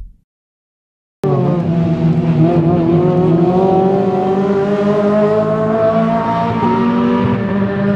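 Racing car engine running hard at speed on track, cutting in abruptly about a second in; its note sinks slowly in pitch. A deep boom fades out at the very start.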